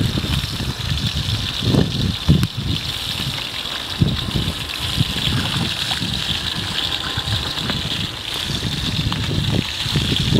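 Shallow pond water sloshing and splashing around a person's legs and hands as she wades in and reaches into the water. A steady high-pitched hiss runs underneath.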